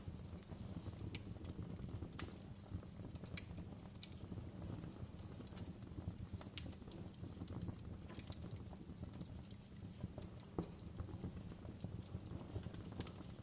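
Wood fire burning in a fireplace, with a soft steady low rumble and frequent irregular sharp crackles and pops.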